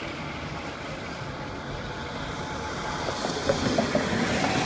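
Steady road and engine noise of a car on the freeway, heard from inside the cabin, growing a little louder about three seconds in.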